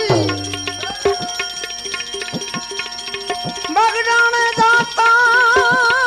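Live bhajan accompaniment: a tabla playing a steady stream of short pitched strokes under a held melody line. The wavering melody comes back in about four seconds in and tails off near the end.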